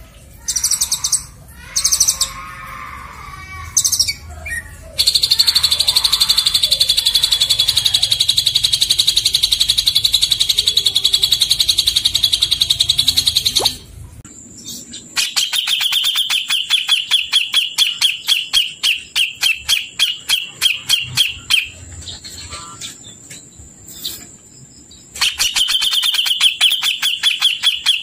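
Songbird song recorded for bird training: a few short chirps, then a long fast trill lasting about eight seconds. After a brief pause come runs of rapid repeated notes, with a thin steady high whistle under the middle stretch.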